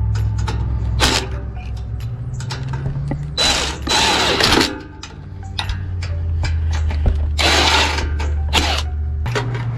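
Power tool and ratchet work on the tiller's small engine during reassembly: several short bursts of tool noise, over a steady low hum.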